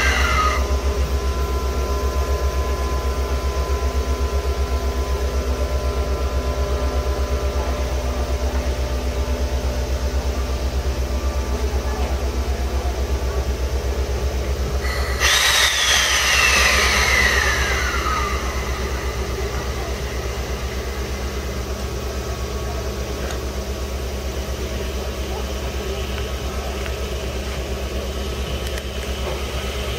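Compressed-air equipment of the D51 70 steam locomotive, which runs on air from two compressors on its tender: a steady low pulsing drone throughout. About halfway through, a loud hiss of released air breaks out, carrying a whistling tone that falls in pitch over about three seconds.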